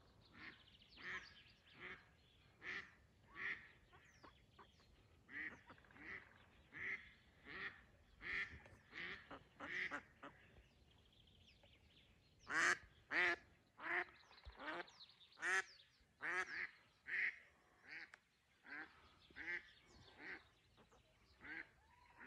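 Live decoy hen duck quacking in a long series of short calls, about one every second. The series breaks off briefly near the middle, then comes back as a louder run of quacks before settling into softer ones. It is the hen calling to draw in wild drakes.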